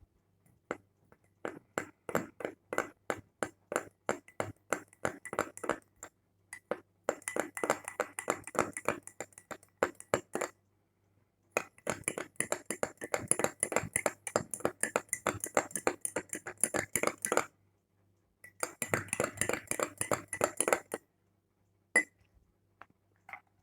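A spoon stirring in a cup and clinking against its sides: scattered clinks, then three quick runs of rapid clinking with short pauses between.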